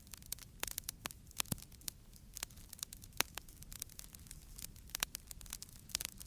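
Wood fire crackling and burning: irregular sharp pops and snaps, several loud ones, over a low rumble of the flames.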